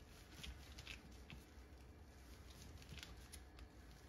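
Faint, irregular light taps of a metal fork pressing down along the edge of a raw empanada to crimp and seal the dough, the tines meeting the paper towel and countertop beneath.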